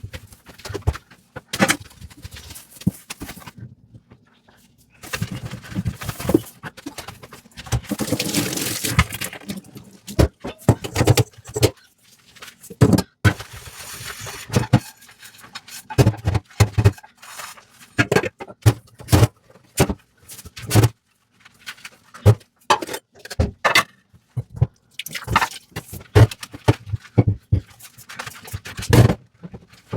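Dishes being washed by hand at a sink: many irregular clinks and knocks of dishes and cutlery, with two stretches of running or splashing water, one about five seconds in and a shorter one later.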